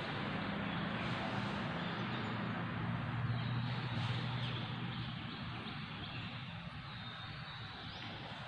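Steady background noise with a low hum that swells over the first few seconds and fades after about five seconds.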